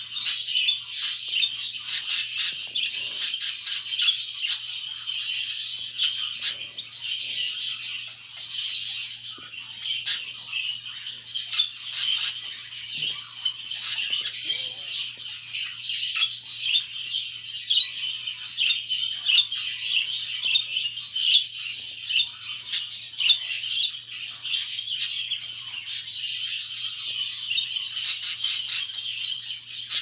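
A cage of pet budgerigars chattering and warbling nonstop: a dense stream of chirps with louder, sharper calls every second or so. A faint steady low hum runs underneath.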